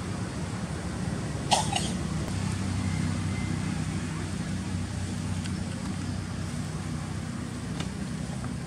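A steady low engine-like hum, with one short sharp double sound about a second and a half in.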